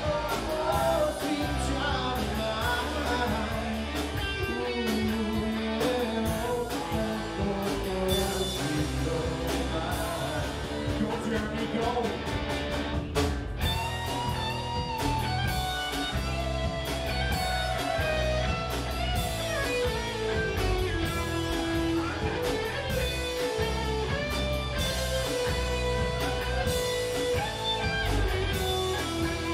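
A live band playing a song, with guitar and singing over bass and drums.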